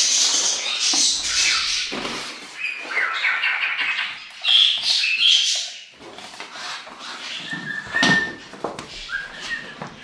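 Budgerigars chattering and warbling in scratchy, busy runs, with a few short whistled notes and some sharp clicks and knocks among them.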